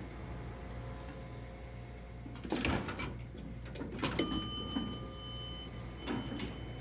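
Elevator chime: a single bell-like ding about four seconds in that rings on and fades slowly, preceded by a couple of clicks and knocks.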